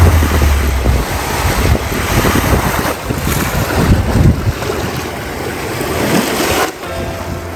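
Wind buffeting the microphone over the rush of sea surf, cutting off abruptly near the end.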